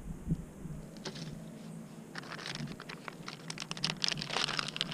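Close crinkling and rapid small clicks from a plastic soft-bait packet and a hook being handled while a fresh soft-plastic craw bait is rigged. The handling gets busy from about two seconds in.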